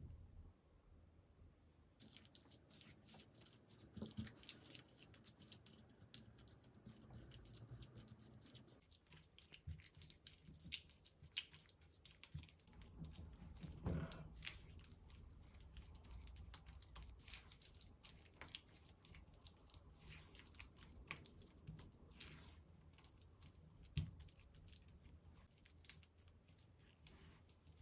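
Spatula stirring and mashing softened butter, sugar, oil and milk in a bowl: faint, irregular squishing and scraping with a few louder knocks against the bowl.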